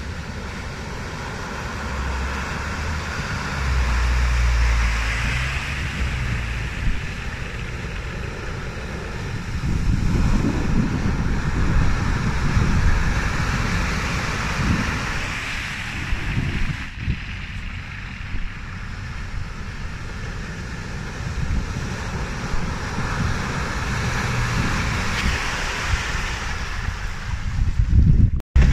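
Off-road 4x4 vehicle driving, its engine a low rumble that swells and eases, under a steady rushing noise with wind buffeting the microphone.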